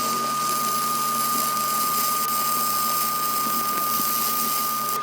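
A machine running steadily, with a constant high whine over a low hum and hiss.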